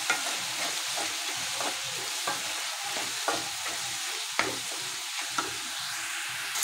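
Diced potato and chopped spinach stalks sizzling in oil in a metal kadhai as they are fried with freshly added spices, while a wooden spatula stirs them, scraping and knocking against the pan about once a second.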